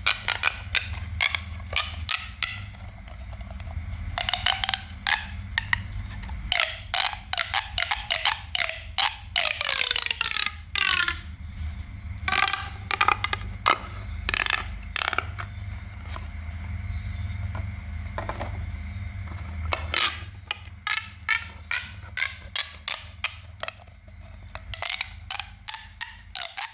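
Handmade pop-sound toy being popped: rapid, irregular sharp pops and clicks coming in clusters, some with a brief ringing tone, over a steady low hum.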